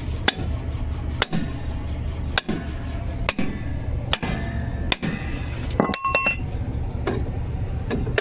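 Hammer blows on metal at a steady pace of about one a second, over a continuous low hum. One blow a little after the middle leaves a short metallic ring.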